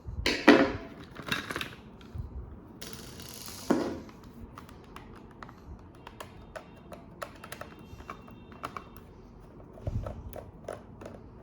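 Background music with scattered small clicks and taps of a screwdriver working the screws out of a Dyson V7 battery pack.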